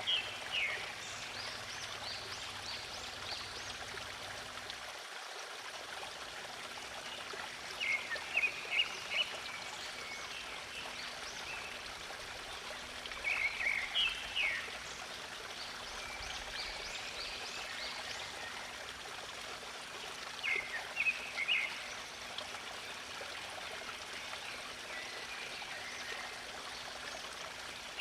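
Steady rush of running water, like a stream, with a bird singing short phrases of a few quick high notes about every six seconds, five times in all.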